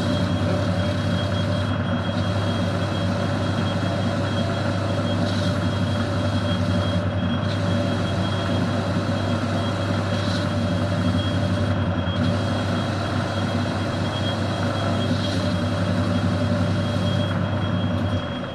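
HQ800 multi-purpose lathe running under power, turning down a hard steel output shaft. A steady motor hum that cuts off near the end as the machine is switched off.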